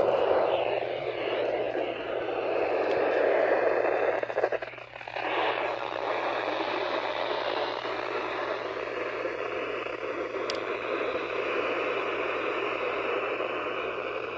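Steady static hiss from a weather radio receiver on a weak signal, with a click at the start and a brief dropout about five seconds in.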